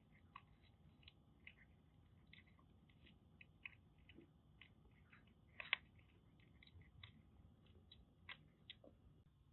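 Siamese-mix kitten crunching dry kibble: faint, irregular small crunches, with one louder crunch about halfway through.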